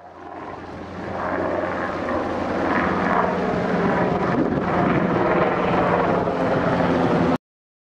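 A steady engine drone that fades in over the first second or so, holds even, and cuts off abruptly near the end.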